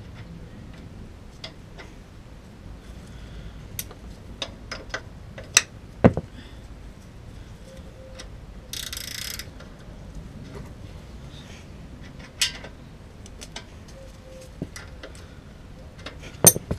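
Spanners and metal parts clicking and clinking at a Yamaha YBR's rear axle and chain adjuster bolts while the drive chain is being tightened: scattered light taps, a few sharper knocks, and a short rasping burst about nine seconds in.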